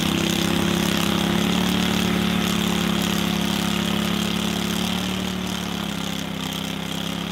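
Boat motor running steadily under way, with water rushing and churning along the hull. The hum eases off slightly after about five seconds.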